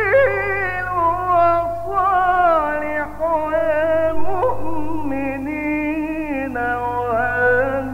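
A man reciting the Quran in a melodic, drawn-out style, holding long ornamented phrases whose pitch winds up and down, over a steady low electrical hum.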